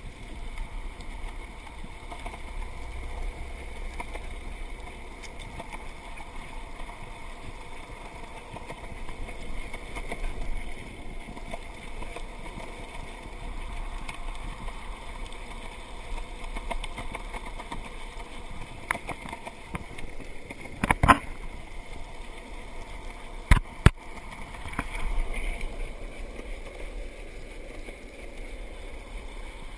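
Water rushing and gurgling along a kayak's hull as it moves. About two-thirds of the way through come a few sharp knocks, two of them in quick succession.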